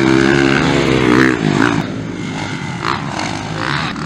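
Motocross bike engine running hard close by, its pitch wavering with the throttle. About two seconds in it drops away to quieter, more distant engine noise.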